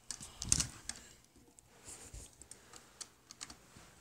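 Irregular light clicks and knocks of crutches and feet on a staircase, with the rustle of a handheld camera being moved.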